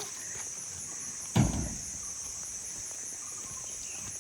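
Insects trilling steadily in a high, even pulsing drone. A single dull thump comes about a second and a half in.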